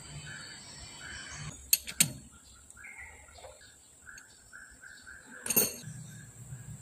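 A bird in the background calls in a run of short, evenly repeated notes, about two a second. Sharp clicks, two close together about two seconds in and a louder knock near the end, are the loudest sounds.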